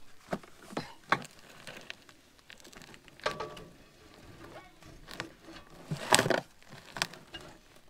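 Scattered metal knocks and clicks as a new trailer brake drum and hub is handled and slid onto the axle spindle, with a louder clatter about six seconds in.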